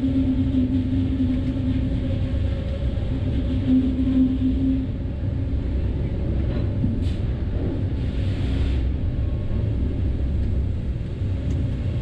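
Sawmill resaw line running: a steady low rumble with a humming tone that weakens about five seconds in, and two short hisses near the end.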